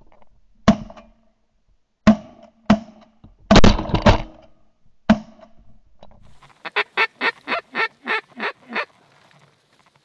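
Shotgun shots, about five of them sharp and scattered over the first five seconds, the loudest a quick cluster near the middle. Then a run of about ten duck quacks, about five a second, falling off slightly in loudness.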